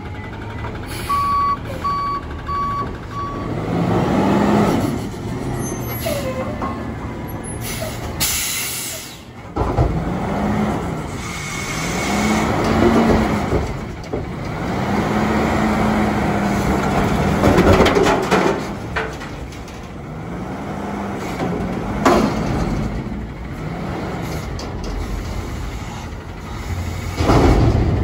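Autocar ACX garbage truck with a Heil Freedom front-loader body: a reverse alarm beeps four times near the start. Then the engine revs up and down over and over to power the hydraulic forks as they lift a dumpster over the cab, with sharp air hisses between and a thump near the end.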